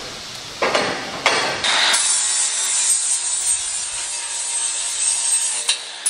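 Angle grinder grinding a steel auger flighting extension to fit, a steady high hiss that starts about two seconds in, after a couple of short scraping strokes of metal.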